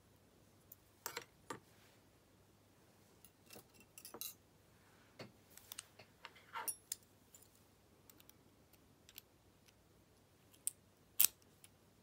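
Brass core of an American 1100 padlock being handled and taken apart by hand: scattered small metallic clicks and taps of plug, key and lock parts, the loudest near the end.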